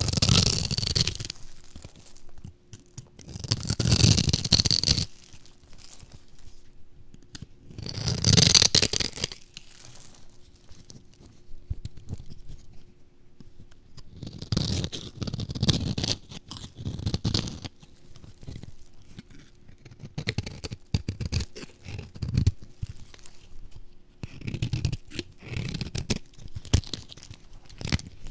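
A knife cutting cubes from a scored bar of crunchy dry soap. The cubes crunch and crumble off in about six loud bursts a few seconds apart, with softer crackling between them.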